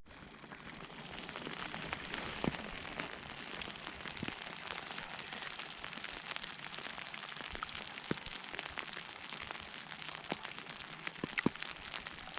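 Falling snow pattering steadily, like light rain, with irregular sharper ticks scattered through it.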